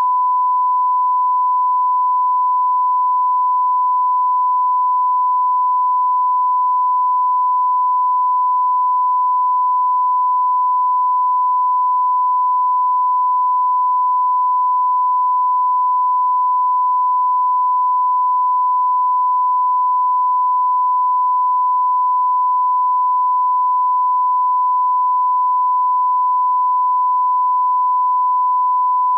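Broadcast line-up test tone: a steady 1 kHz reference sine tone that accompanies colour bars for level alignment, holding one unbroken pitch at a constant level.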